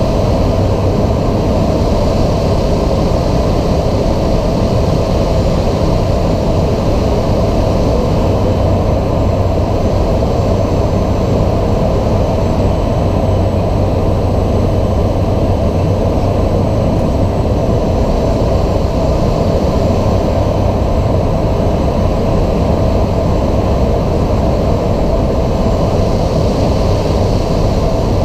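Cessna 208B Grand Caravan EX's single Pratt & Whitney PT6A turboprop and propeller running steadily, a loud even drone with a constant low hum.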